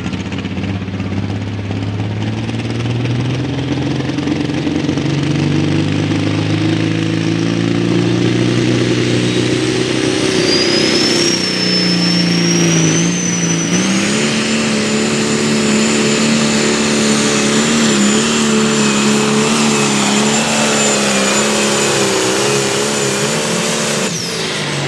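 John Deere light limited pulling tractor's diesel engine under full power on a pull. The engine note climbs over the first ten seconds as the tractor takes off with the sled, dips briefly, then holds high and steady with a high whistle over it. Near the end it winds down sharply as the pull stops.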